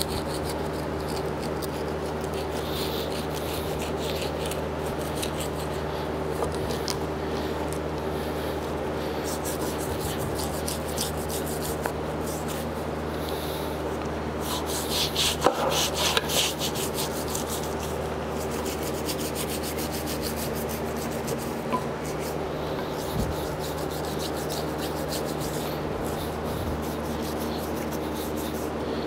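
Plastic scraper and brush-ended paint stripping tool scraping and scrubbing old paint, softened by citrus stripper, off a lathe quick change gearbox housing, in many quick strokes that are loudest about halfway through. A steady hum runs underneath.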